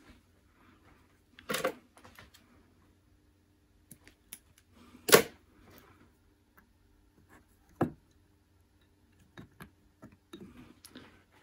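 A few sharp clicks and knocks from handling a push-pull potentiometer and its wiring on a work mat, the loudest about five seconds in, with faint ticks in between.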